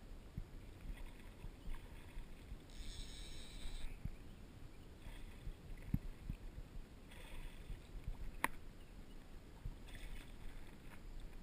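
A hooked fish splashing at the surface of shallow water in several short bursts while it is played and landed, over a steady low rumble, with one sharp click about two-thirds of the way through.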